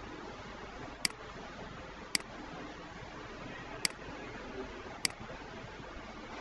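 Four sharp computer mouse clicks, unevenly spaced, over a steady background hiss.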